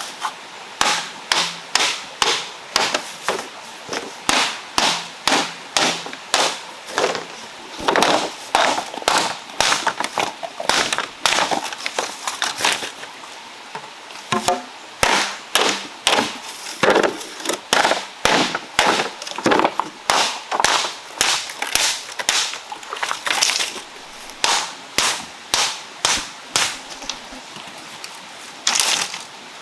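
A large knife striking green bamboo poles, splitting them lengthwise: sharp woody knocks at about two a second, with a short pause about halfway and another near the end.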